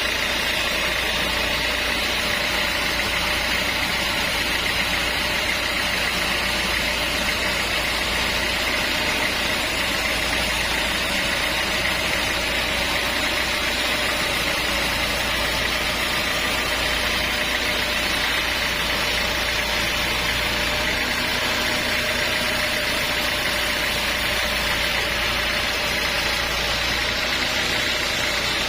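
Sawmill machinery running steadily: an even, unchanging engine drone with no change in pace or load.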